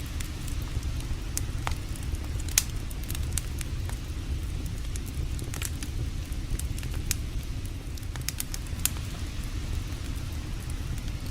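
Campfire crackling, with irregular sharp pops, one of them louder about two and a half seconds in, over a steady low rush of a flowing creek.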